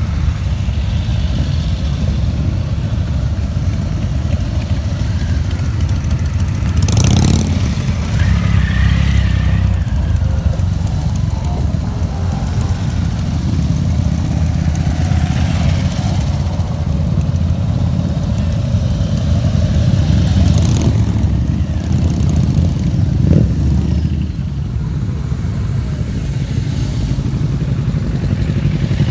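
A line of motorcycles riding slowly past one after another, their engines making a steady deep rumble, with a louder burst about seven seconds in.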